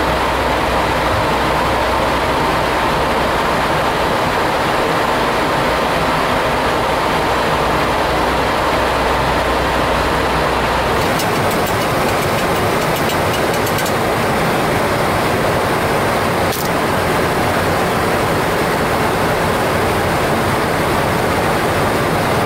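Steady rushing ambient noise on a Boeing 737 flight deck, with a low hum under it for about the first half. After the hum stops, a few faint ticks follow for a couple of seconds.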